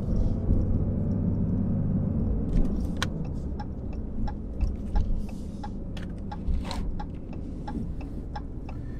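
Inside the cab of a 2020 Ram 2500 on the move: the 6.7-litre Cummins diesel running with a low, steady hum that eases after about two seconds, with scattered light clicks and rattles.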